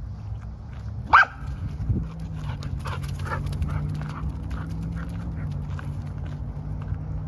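A Samoyed gives one short, high bark about a second in. After it come the crunching footsteps of the dog and the walker on the leaf-littered dirt trail.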